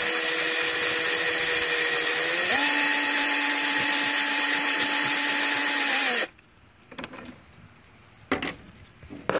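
Power drill spinning a wire cup brush against the rusted pole shoes of a lawn tractor's engine stator, scrubbing off the rust. The motor's whine steps up in pitch about two and a half seconds in and stops suddenly after about six seconds, leaving a few faint clicks.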